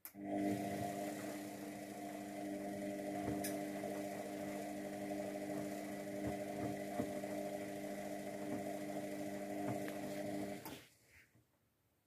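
Luxor WM 1042 washing machine running with a steady mechanical hum, a few faint clicks within it. The hum starts suddenly and cuts off about eleven seconds in.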